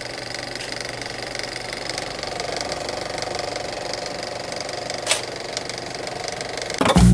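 Old film projector sound effect, a steady rapid mechanical rattle under an intro logo, with a sharp click about five seconds in. It ends in a loud low hit with a held boom right at the end.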